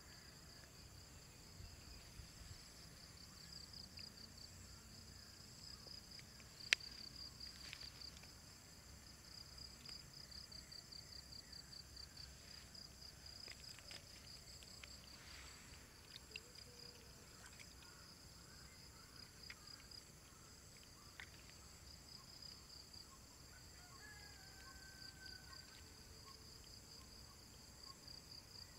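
Faint, steady chorus of trilling insects, a fast even pulsing that keeps going. A single sharp click stands out about a quarter of the way in.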